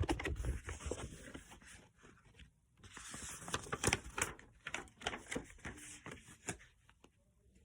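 Close rustling and scraping handling noise with scattered clicks, in two stretches: one at the start and a longer one from about three seconds in.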